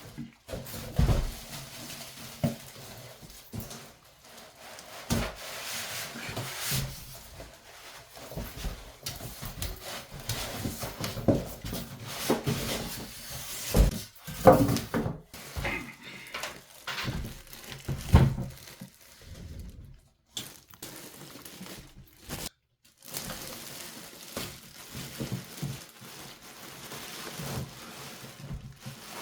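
Handling noises of PC parts and packaging during assembly: irregular knocks and thunks with rustling in between, the loudest knocks about halfway through and again around two-thirds of the way.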